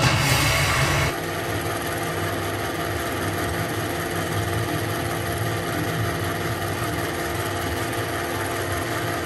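Kodak Instamatic M95 8 mm film projector running: a steady mechanical hum from its motor and film drive, starting about a second in as the music before it cuts off.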